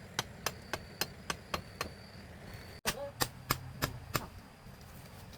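Quick, regular chopping strokes, about four a second. They break off briefly near the middle and then resume. A steady high-pitched insect drone runs underneath.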